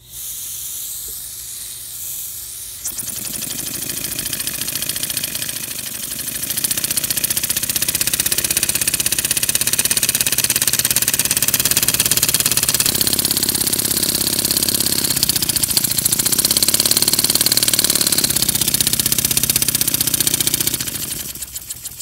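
Small single-cylinder vertical oscillating model engine running, a rapid stream of hissing exhaust puffs and light rattle. It picks up speed and loudness over the first few seconds, runs fast and steady, then slows near the end until separate puffs can be heard.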